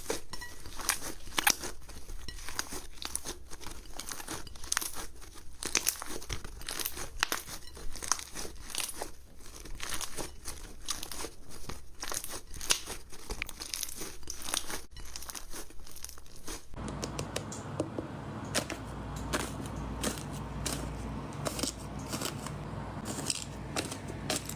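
Slime squeezed and pulled by hand, a dense run of small crackling pops and clicks. About two-thirds of the way through the sound switches to another take, with a steady low hum under the crackling.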